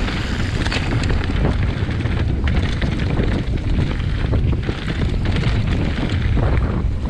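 Wind buffeting the microphone of a rider-mounted camera on a moving mountain bike, over the steady rumble of knobbly tyres rolling on a stony dirt trail. The bike's frame and parts give scattered small rattles and knocks as it runs over stones.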